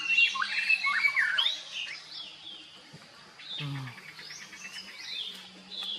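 Birds chirping and calling in quick rising and falling notes, busiest in the first second and a half. A short, low, falling sound comes about three and a half seconds in.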